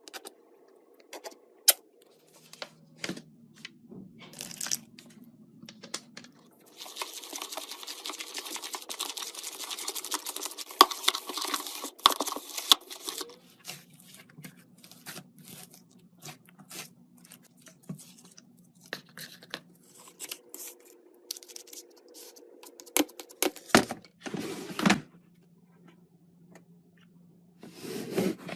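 Hands-on crafting noises: a dense stretch of tearing several seconds long, surrounded by scattered sharp taps and clicks of things being handled.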